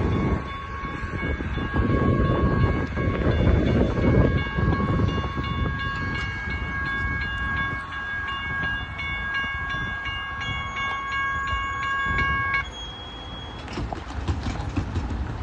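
Railroad crossing bells ringing steadily over the rumble and clatter of a freight train's cars rolling past. The rumble is heaviest in the first few seconds, and the bells cut off about three-quarters of the way through as the crossing clears.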